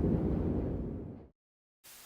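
A low, deep rumbling noise that fades and cuts off to silence a little past halfway, followed by a faint hiss.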